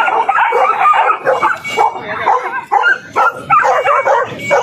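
Many caged puppies yapping and whining at once, a dense overlapping chorus of high calls with no break.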